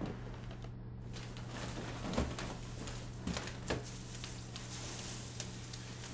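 Quiet room tone: a steady low hum with a few faint knocks and rustles.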